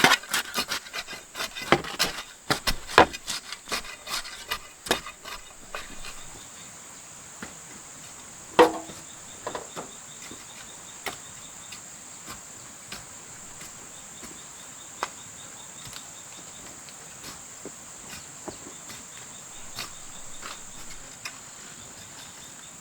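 Insects droning steadily at a high pitch under wooden knocking and tapping. The knocks come rapidly for the first few seconds, then only now and then, with one louder, hollow-ringing knock about eight seconds in.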